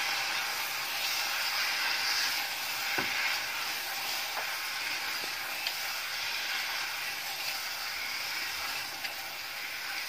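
Thick onion-tomato masala sizzling in a pot as pieces of boiled egg are stirred and turned through it with a plastic spatula: a steady frying hiss with a few faint scrapes and taps.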